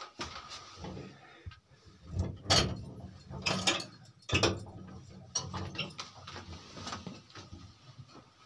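Shoes scuffing and knocking on wooden beams and dusty rock as people clamber through a narrow cave passage, with a few louder knocks about two to four and a half seconds in.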